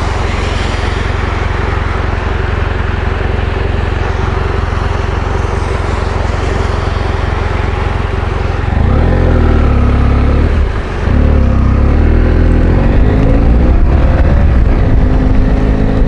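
Motorcycle riding on the road: a steady rush of wind and road noise over a low engine hum, then, about nine seconds in, the engine revs up and down, dips briefly as a gear is changed, and climbs in pitch as the bike accelerates.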